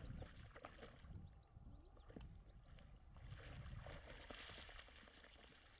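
A dog splashing and wallowing in a shallow muddy pond, faint water sloshing with a louder burst of splashing a little past halfway.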